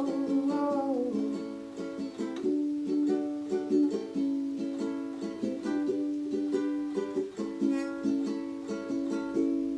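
Ukulele strummed in a steady rhythm of chords, an instrumental passage with no singing; a held sung note slides down and fades in the first second.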